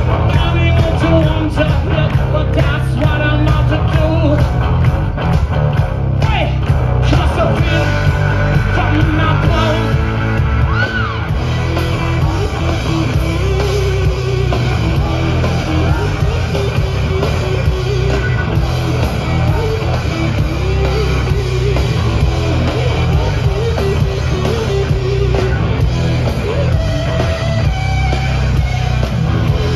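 Live rock band playing loud: electric guitar, drums and bass with singing, heard through the PA from among the audience.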